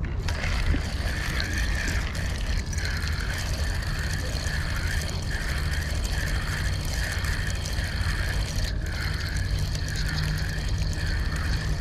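Fishing reel being cranked to retrieve line: a whirring that swells and fades about twice a second, starting a couple of seconds in, over a steady low rumble.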